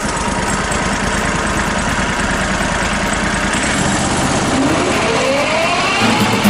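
Peterson portable sawmill's petrol engine running steadily, with a rising whine about four and a half seconds in as the engine speeds up.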